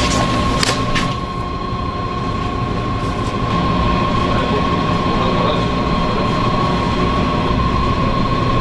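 Machinery running steadily, a constant high whine over a low rumble, with a couple of sharp clicks in the first second.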